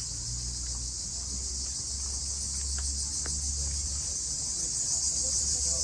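Steady, high-pitched shrilling of cicadas in chorus, with a low steady rumble underneath.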